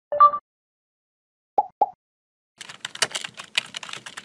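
Keyboard typing sound effect: a fast run of key clicks starting about two and a half seconds in, matching text being typed into an on-screen search bar. Before it there is a short two-note electronic blip at the very start, the loudest sound, and two quick soft pops about a second and a half in.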